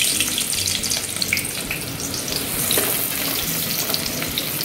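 Finely chopped onion frying in hot oil in a wide steel pot: a steady sizzle with many small crackles, as the onion is tempered in the oil.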